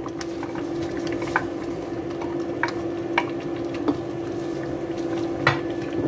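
Wooden spatula stirring leafy greens into a stainless steel pot of boiling mung bean soup, with scattered light knocks against the pot, the sharpest about five and a half seconds in. A steady hum runs underneath.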